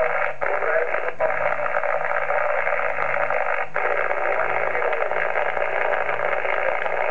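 Transceiver loudspeaker giving steady hiss and static while tuned to 27.580 MHz upper sideband, with an S7–S8 signal showing. The noise cuts out briefly a few times as the radio's DSP noise-reduction and filter settings are switched.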